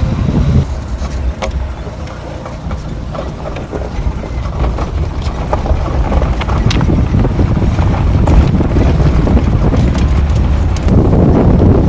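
A vehicle driving over a rough, unpaved road, heard from inside: a low rumble with scattered knocks and rattles, growing louder in the second half.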